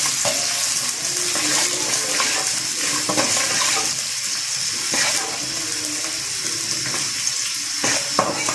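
Chopped onions sizzling steadily in hot oil in a metal kadai. A metal spatula scrapes and knocks against the pan now and then as the onions are stirred.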